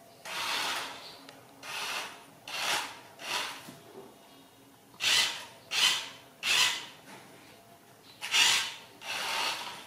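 Toy remote-control car driven in short spurts across a tiled floor, its small motor and wheels making about nine brief rasping whirrs at irregular gaps.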